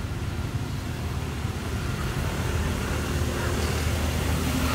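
Steady low rumble of a motor vehicle engine, growing a little louder toward the end.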